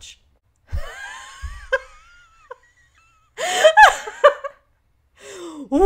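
A woman's wordless vocal reactions: a long, wavering whine about a second in, then a loud gasping, laughing outburst about three and a half seconds in, and another rising vocal sound near the end.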